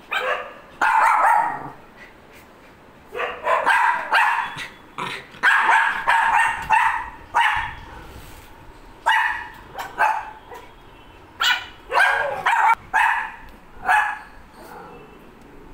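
Pomeranian dogs barking in repeated volleys of short, sharp barks, a territorial outburst at a dog outside.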